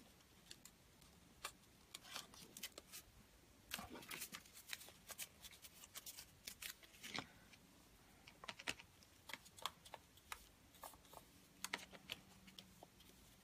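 Faint rustling and crinkling of folded paper squares being handled and pressed together, a scatter of small irregular clicks and crackles.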